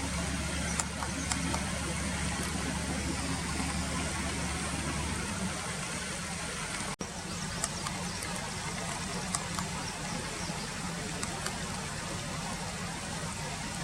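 Steady rush of flowing river water, with a low engine hum underneath that stops about five seconds in, and a few faint, short high ticks scattered through.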